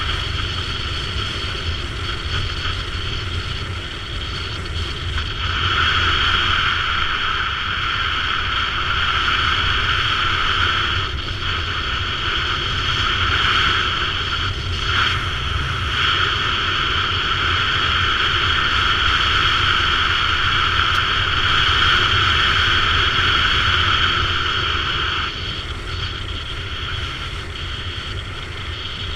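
BMW F650 GS motorcycle riding along, its engine and wind noise steady, growing louder about five seconds in and easing back near the end, with two short dips around the middle.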